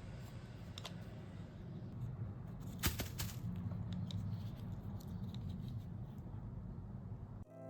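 Small clicks and light scratching from vacuum cleaner parts being handled and cleaned, over a low steady hum. Piano music comes in near the end.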